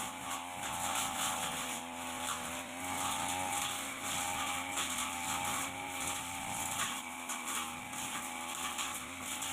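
Backpack brush cutter engine running steadily at high speed while its metal blade cuts through light grass and weeds, with irregular swishes of cutting over the engine's note.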